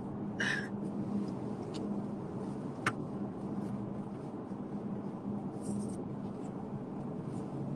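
Steady road and engine hum inside a moving car's cabin, with a brief rustle about half a second in and a single sharp click just before three seconds in.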